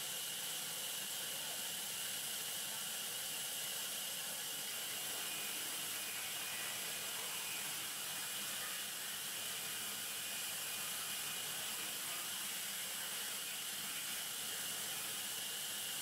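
Sawmill band saw running while a log is fed through it: a steady, even hiss that holds constant with no breaks.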